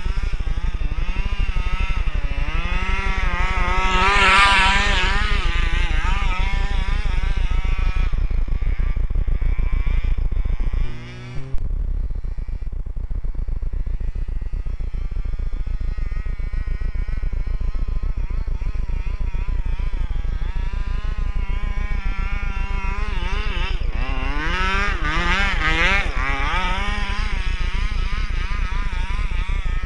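A 27cc two-stroke gas engine in a large-scale FG RC truck revving up and down as the truck drives and spins in snow. The pitch climbs high about four seconds in and again near the end, with a brief dip in level about eleven seconds in.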